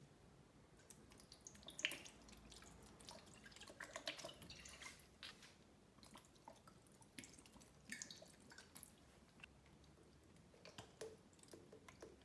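Faint dripping and splashing of vinegar and olive oil poured from bottles onto cooked pasta in a glass bowl, with scattered small clicks and taps.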